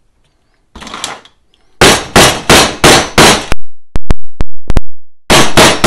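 Mallet blows on a leather belt-end punch, driving it through leather to round off a strap end. The blows come as a run of about a dozen sharp strikes, a few a second, with a brief lighter tap first.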